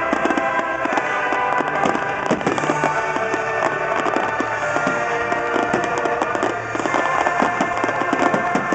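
Dense, irregular run of fireworks shell bursts and crackle from a display finale, heard over music with sustained tones.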